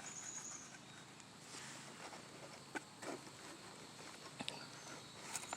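Hands digging through soil in a potato pot: faint rustling and scraping of the soil, with scattered small sharp cracks of roots snapping as the potatoes are pulled loose.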